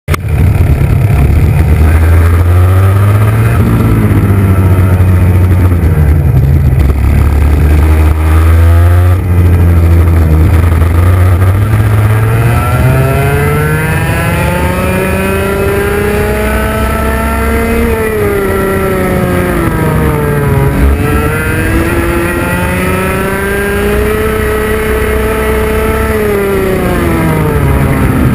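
IAME X30 Junior 125cc two-stroke kart engine running at racing speed. Its pitch climbs along each straight and drops sharply under braking, with clear dips about 18, 21 and 27 seconds in. A heavy low rumble sits under it for the first dozen seconds.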